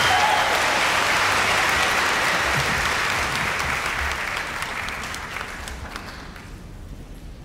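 Audience applause after a live musical number, a dense even clapping that slowly fades away over the last few seconds.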